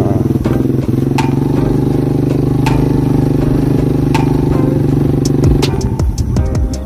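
Small motorbike engine running steadily at low speed on a rough dirt track, its note wavering near the end. A few sharp clicks and rattles come through, more often in the last couple of seconds.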